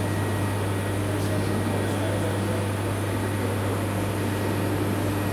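Steady low mechanical hum with a fainter even hiss over it, from machinery in a telescope dome.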